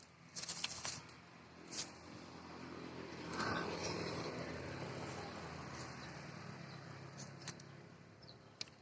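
An engine running faintly, swelling to its loudest about three and a half seconds in and then slowly fading, with a few sharp clicks.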